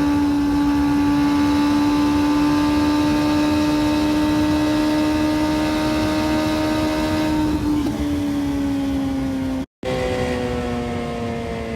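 Suzuki Hayabusa inline-four through a Brocks exhaust, held at high revs under load, its pitch climbing slowly and then falling as the throttle eases off. Near the end the sound cuts out for an instant and comes back still falling in pitch.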